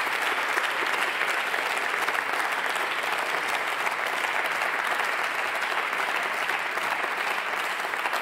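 Applause from members of parliament in a large debating chamber, many hands clapping together in a steady wash that eases slightly near the end.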